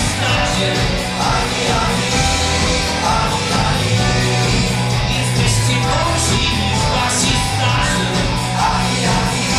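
Rock band playing live: electric guitars, bass and drums with a sung lead vocal, heard from the audience in a concert hall.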